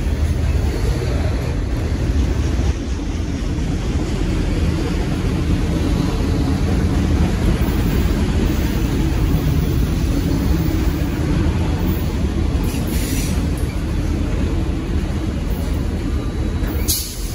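Freight train of enclosed autorack cars rolling steadily past at close range: the continuous noise of steel wheels on the rails.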